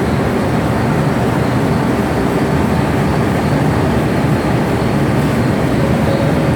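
Metal lathe running with a loud, steady machine noise.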